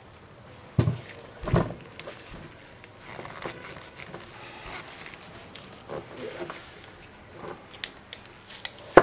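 Screwdriver prying the rubber dust seal off a scooter's front fork leg, with scattered small clicks, scrapes and knocks as the fork is handled. A couple of louder knocks come between one and two seconds in, and a sharp click at the very end.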